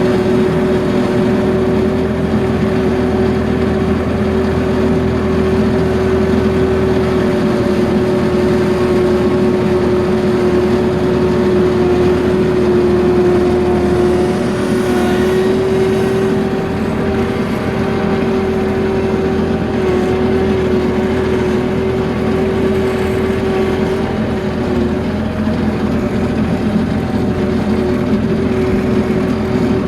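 A motor or small engine running steadily for the whole stretch, with a constant hum and a few overtones above it, its pitch wavering slightly in the second half.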